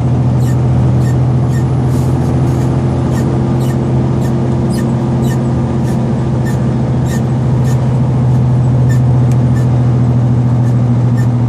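Tractor-trailer engine running with a steady low hum, heard from inside the cab on the highway. Short sharp clicks or ticks come irregularly over it, about two or three a second.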